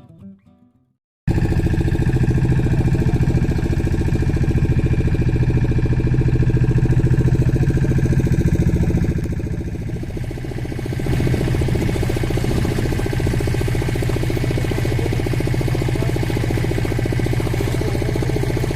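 A motor vehicle engine running steadily close to the microphone, starting about a second in, with a brief drop in level around the middle.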